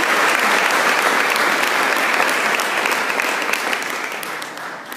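An audience applauding, many hands clapping in a dense patter that gradually dies away over the last second or two.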